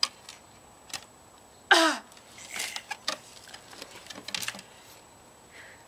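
A short vocal sound falling in pitch about two seconds in, among soft breaths and a few small clicks.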